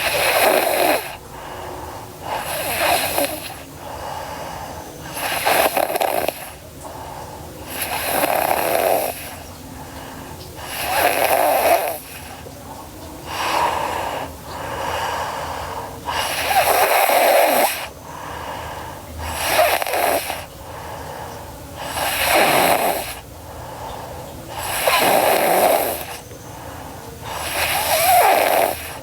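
A sleeping girl snoring: about one snore every two and a half to three seconds, each lasting about a second.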